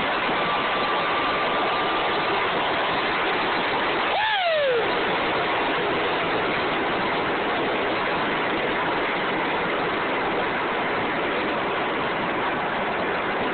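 Steady loud rush of wind and road noise heard from inside a vehicle at speed. About four seconds in, a short whine falls quickly in pitch.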